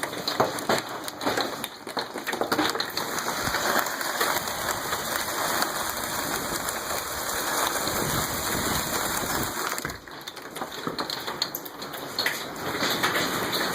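Hail and heavy rain pelting down, a dense clatter of many small hits. It eases briefly about ten seconds in, then picks up again.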